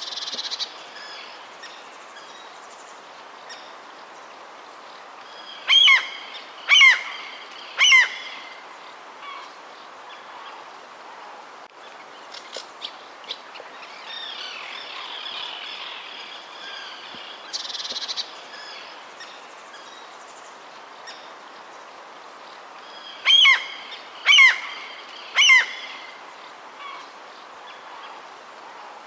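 Wild birds calling over a steady outdoor background, with many small chirps throughout. Twice, a loud series of three sharp, downward-sweeping calls comes about a second apart.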